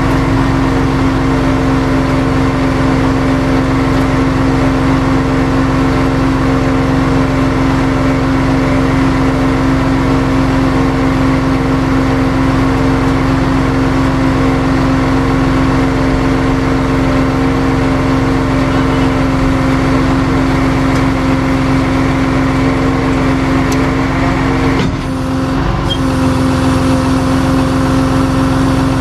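A truck engine, most likely the tow truck's, running at a steady speed: a constant drone with a faint wavering whine above it. The sound briefly drops near the end.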